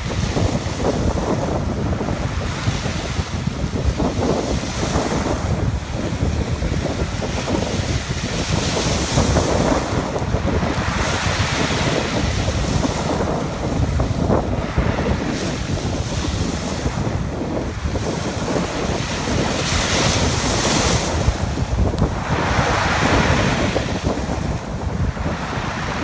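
Sea waves breaking and washing up a pebble beach, the surf hissing in surges every few seconds over a steady rumble of wind buffeting the microphone.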